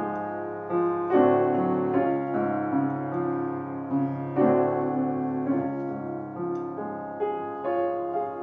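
Grand piano playing a slow piece in chords, each chord struck and left to fade before the next.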